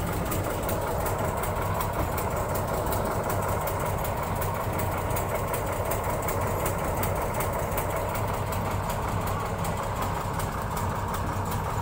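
Diesel engine of a Hira combine harvester running steadily at idle.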